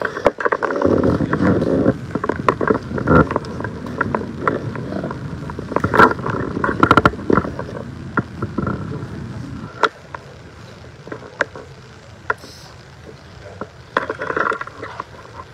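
Rustling and scraping noise in a busy chamber, with many short knocks and clicks. It is busiest for the first nine seconds or so, then thins to occasional clicks.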